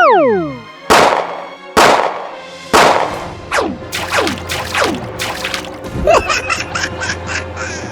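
Edited cartoon-style sound effects: a rising-and-falling pitched glide, then three sharp hits about a second apart, each followed by quick falling whistle-like sweeps, and near the end a rapid run of ticks.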